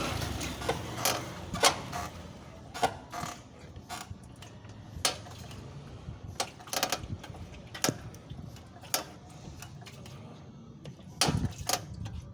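Honda ADV scooter rattling: irregular sharp clicks and knocks over a low steady hum. The rattle comes from loose fuel-tank mounting bolts.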